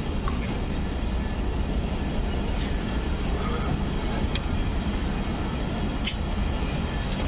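Subak Raftar Express passenger train running: a steady low rumble, with a few short sharp clicks through it.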